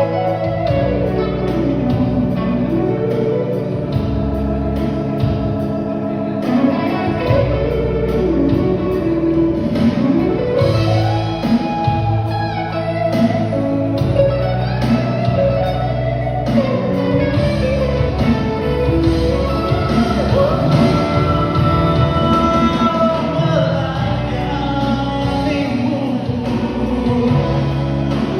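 Live church band playing a worship song, with electric guitar and organ over a steady beat, and a gliding melody line that may be a voice.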